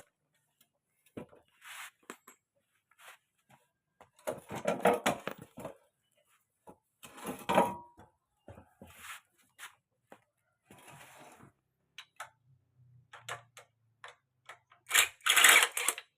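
Irregular clicks, rattles and scraping bursts of hand work on a small engine that is not running, the loudest clatter near the end.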